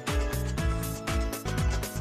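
Background music with a steady beat and a deep kick drum, an upbeat pop track.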